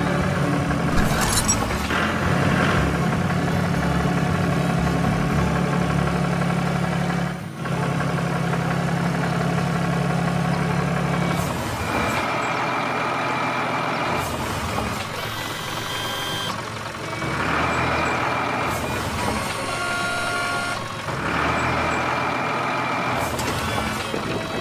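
Truck engine running steadily, then in the second half a series of three long tonal beeps, each about two seconds.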